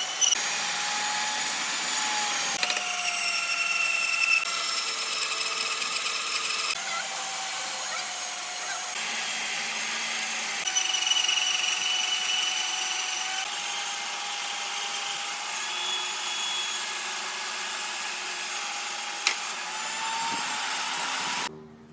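Electric woodworking power tools running on wood: a steady whine over a rasping hiss. The pitch changes abruptly every few seconds, and the sound cuts off suddenly near the end.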